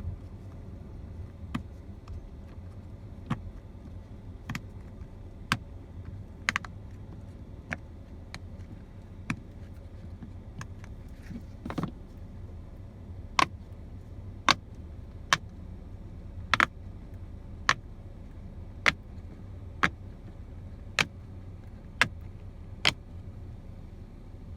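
Silicone pop-it fidget toy being popped one bubble at a time: a short, sharp pop about once a second, the pops growing louder in the second half, over a steady low rumble.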